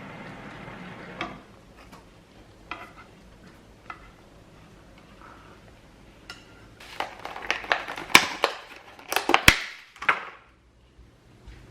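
Hard objects being handled: a steady hiss stops about a second in, a few scattered clicks follow, and then a run of clattering knocks and clicks in the second half, loudest about eight and nine and a half seconds in.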